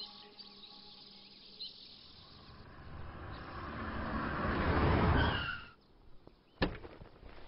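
Faint bird chirps, then an SUV driving past, its engine and tyre noise swelling to a peak about five seconds in with a brief squeal and cutting off abruptly, followed by a single sharp knock.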